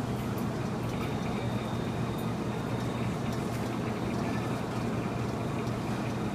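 Steady supermarket background noise: a constant low hum under an even hiss, with a few faint ticks.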